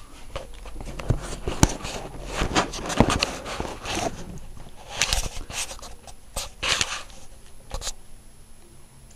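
Samsung WF9700N3W front-loading washing machine on its wool cycle, the drum turning slowly with wet blankets inside. It is heard as irregular swishes and knocks that die down near the end.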